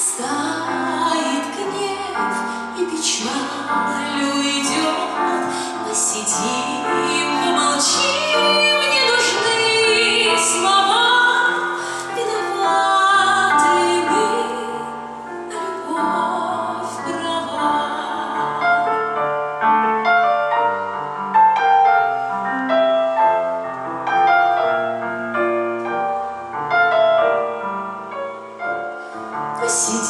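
A woman singing a slow song into a microphone over an instrumental accompaniment. Her voice holds long notes with vibrato.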